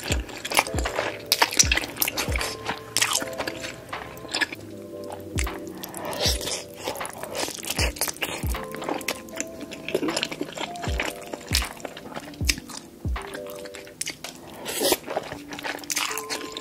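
Background music with a steady beat plays over close-miked mukbang eating sounds: bites and chewing of cheese-covered instant noodles and tteokbokki rice cakes.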